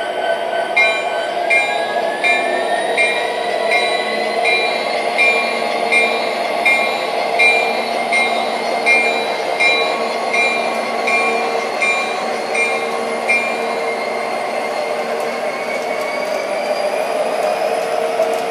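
Electronic sound system of an MTH O-gauge model diesel locomotive: steady diesel engine sound with the locomotive bell ringing about once every three-quarters of a second, stopping about thirteen seconds in. A whine in the engine sound rises in pitch early on and again near the end.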